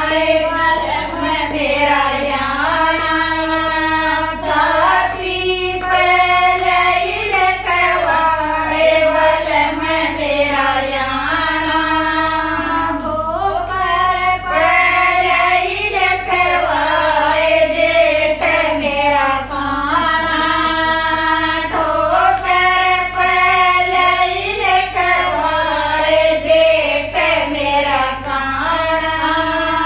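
Group of women singing a Haryanvi jakdi folk song together, a steady run of melodic phrases without a break.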